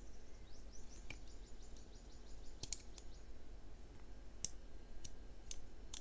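A handful of sharp, irregular metal clicks from a Swiss+Tech 16-in-1 multi-tool being handled, its small spring-loaded scissors and folding parts snapping.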